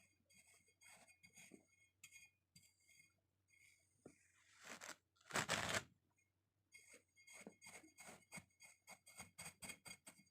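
Kinetic sand being cut and crumbled: a run of short, crisp crunchy scrapes, a louder crumbling rush lasting about a second and a half just past the middle, then quick strokes at about three a second near the end.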